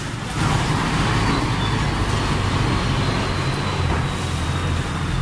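Steady road-traffic noise with a low rumble.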